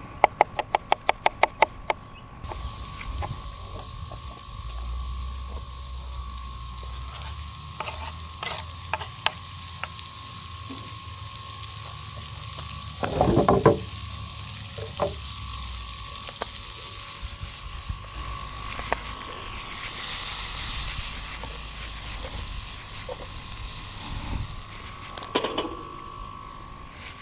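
A knife chopping tomatoes on a wooden cutting board, about five quick cuts a second, for the first two seconds. Then ground meat and tomatoes sizzling in a frying pan over a charcoal grill, with scattered knocks of stirring and one louder clatter about halfway.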